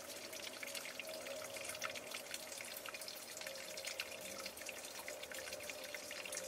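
Liquid propane dripping and trickling from an inverted camping gas cylinder into a glass jar, heard as many quick, irregular faint ticks and spatters, pushed out as pressure builds in the warming cylinder.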